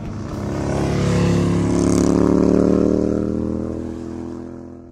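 Sound effect under a channel's logo ident: a steady drone of several even pitches, with a hiss on top. It swells over the first two seconds or so, then fades out near the end.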